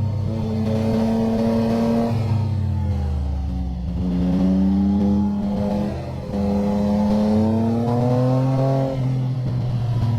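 Motorcycle engine under hard riding, its pitch falling as it slows about a third of the way in, then climbing twice as it accelerates, with a brief dip in sound at each gear change.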